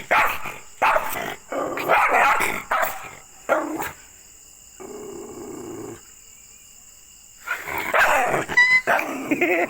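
Dog barking angrily in a run of harsh barks, going quiet for about three seconds midway, then barking again.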